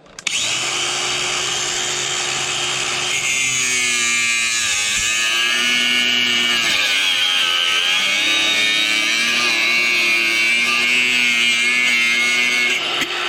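Electric angle grinder with a cutting disc starting up and cutting, a steady high whine whose pitch sags a few times as the disc is loaded and then recovers.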